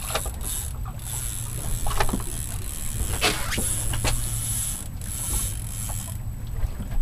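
Low wind and water noise on a small boat, with a thin high whir that comes and goes in stretches of a second or more: a baitcasting reel being cranked as a hooked fish is fought. A few light knocks sound in the middle.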